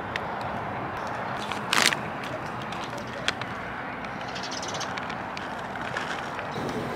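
Plastic pouch of shredded cheese torn open with one short ripping sound about two seconds in, with light crinkling of the plastic as it is handled and squeezed out, over a steady outdoor background hiss.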